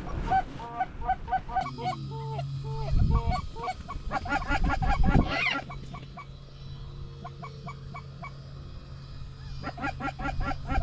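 Snow geese calling: many short, high honks overlapping, thinning out in the middle and crowding in again near the end, over a steady low hum.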